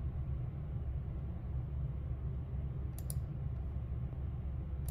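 Computer mouse clicking: two quick clicks about three seconds in and another near the end, over a steady low hum.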